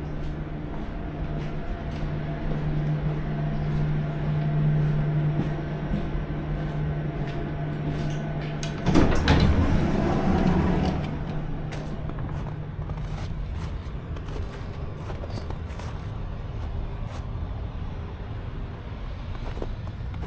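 Tram in motion: a steady electric hum with light rattling clicks. About nine seconds in, a louder rush of running noise lasts roughly two seconds, then the hum carries on.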